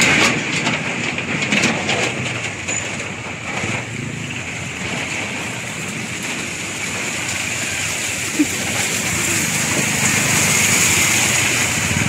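Vehicle driving slowly over a wet, rock-strewn road: steady hiss of tyres through water and loose stone under engine noise, with a few knocks in the first couple of seconds.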